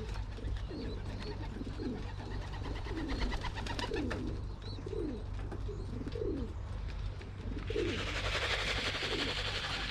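Racing pigeons cooing, many overlapping coos in a steady run. About three-quarters of the way in a steady rustling hiss joins them and carries on.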